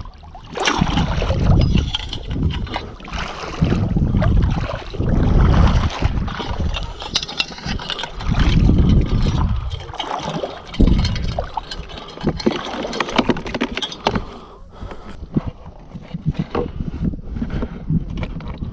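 Shallow seawater sloshing and splashing in uneven surges as someone wades through it working a long-handled crab rake, with wind rumbling on the microphone.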